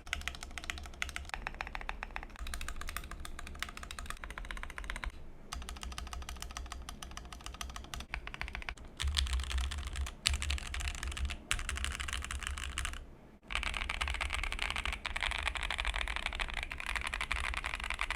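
Keychron Q2 mechanical keyboard being typed on quickly and continuously, a dense stream of key clicks with short breaks about five and thirteen seconds in.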